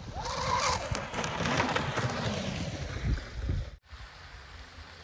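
Wind buffeting the microphone over the distant whine of a twin-brushless RC racing catamaran running fast across a lake. The sound cuts off abruptly near the end and gives way to much quieter outdoor ambience.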